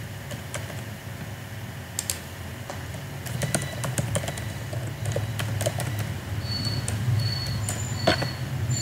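Typing on a computer keyboard: irregular clicking keystrokes over a low steady hum.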